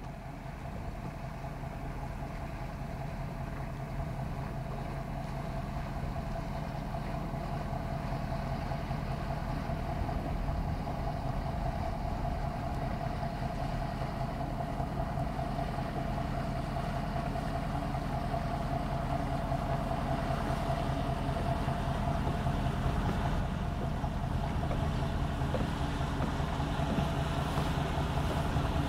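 Motorboat engine running steadily, a low drone with a constant higher hum, growing gradually louder as the boat approaches across the lake.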